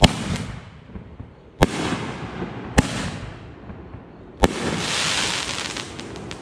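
Fireworks canister shell fired from a mortar tube: a launch bang, then three more sharp reports spaced a second or more apart, each with a long echo. The last report is followed by a sustained high hissing crackle for about a second and a half.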